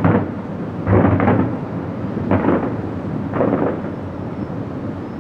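Aerial firework shells bursting: about five deep booms in the first four seconds, two of them close together, each trailing off into a rolling rumble.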